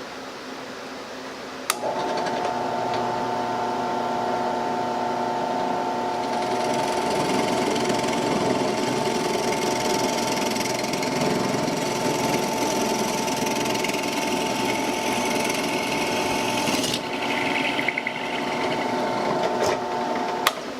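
A drill press motor switches on with a click about two seconds in and runs with a steady hum. From about six to seventeen seconds a rougher grinding noise joins it, as the bit bores a hole through 2x4 lumber. The motor is switched off with a click just before the end.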